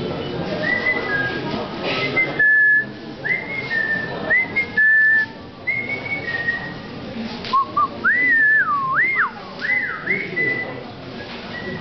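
Whistling in bird-like notes: a run of brief, mostly steady high whistles, then several quick swooping notes that glide up and down about two-thirds of the way in.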